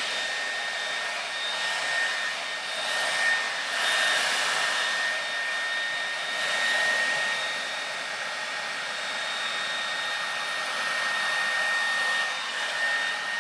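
Conair Infiniti D214SR hair dryer running steadily: a rush of air with a thin high whine, swelling and dipping slightly in level as it is worked through the hair.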